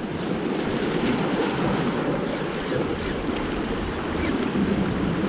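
Small sea waves washing and breaking against breakwater rocks, a steady surf noise, with wind buffeting the microphone.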